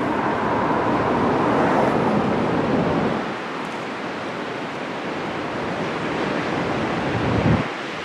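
Ocean surf breaking and rushing ashore as a steady roar of white water, with wind on the microphone. It is louder for the first three seconds, eases off, then swells briefly just before the end.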